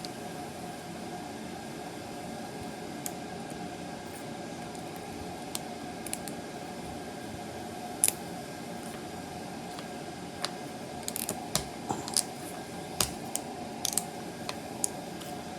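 Light clicks and taps of small wooden knife parts being handled and fitted together, sparse at first and more frequent in the second half, over a steady hum of room noise.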